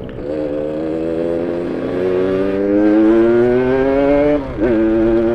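Yamaha RX-King's two-stroke single-cylinder engine pulling under throttle, its pitch climbing steadily for about four seconds. Near the end the pitch and level drop for a moment, as on a quick gear change, then it runs on steady.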